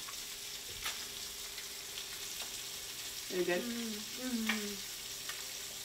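Steady sizzling hiss of fish frying in a pan, with a few light clicks of forks on a plate. A little past halfway someone gives a short hummed 'mmm' while tasting.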